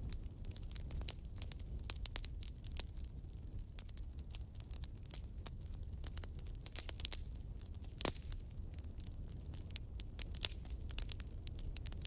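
Wood logs burning in a fireplace, crackling with dense, irregular snaps and pops over a low steady rumble. One sharper pop comes about eight seconds in.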